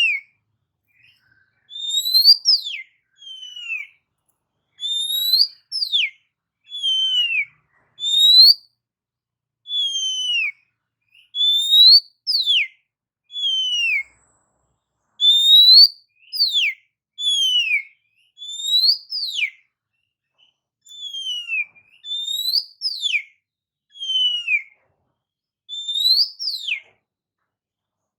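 Oriental magpie-robin (kacer) singing: clear whistled notes that slide up or down, grouped in short phrases with brief gaps between them, about one phrase every second or so.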